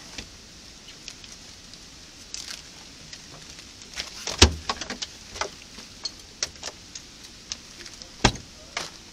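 Light clicks and rattles of things being handled, with a sharp knock about four and a half seconds in and another near the end.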